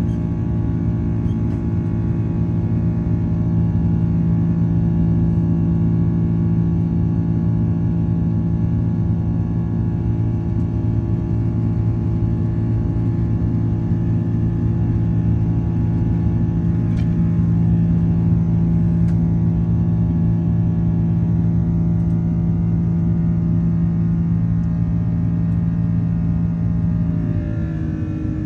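Airliner cabin noise of an Airbus A330-300 with Rolls-Royce Trent 700 engines: a steady drone of several held tones over a low rumble. Near the end the tones shift in pitch and the drone eases slightly as engine thrust changes.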